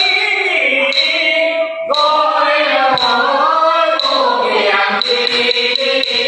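Unaccompanied Teochew opera singing, with sharp knocks about once a second beating time.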